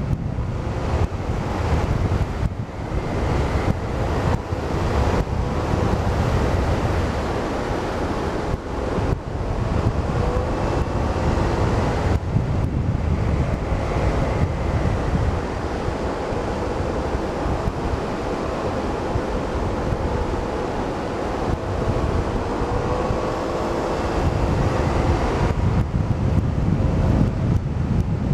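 Heavy wind noise buffeting the microphone of a helmet camera on a moving motor scooter, with the scooter's engine faintly audible beneath as a hum that wavers in pitch.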